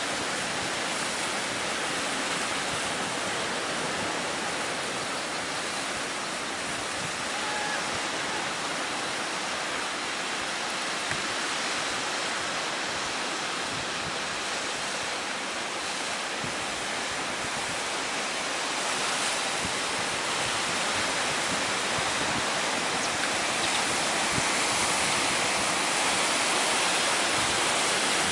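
Strong wind and high surf: a steady rushing noise of wind and breaking waves, growing a little louder over the last several seconds.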